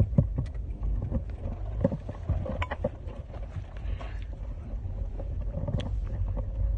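Steady low rumble of a car's cabin on the move, with scattered small knocks.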